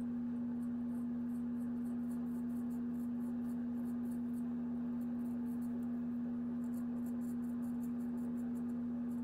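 Gold Dollar straight razor scraping through beard stubble on the neck, heard as runs of short, crisp, high scratches, over a steady low hum.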